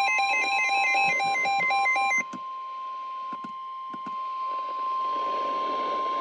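Emergency alert tones: a steady single tone of about 1 kHz, the weather-radio warning alarm tone, sounds with a warbling tone that switches rapidly between two pitches. The warble stops about two seconds in, leaving the steady tone alone over a faint hiss, with a few soft clicks.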